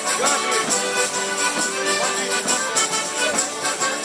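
Live accordion playing a folk dance tune, held reed tones over a running beat.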